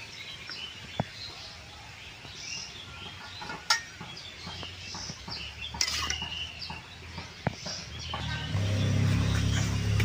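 A metal spatula clinks a few times against a metal kadai as boiled yardlong beans are lifted out of the water. Birds chirp throughout. A loud low hum comes in near the end.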